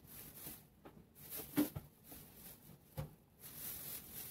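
Colored pencil shading on notebook paper: a soft scratchy hiss in short runs of strokes, with a couple of light knocks, the louder one about a second and a half in.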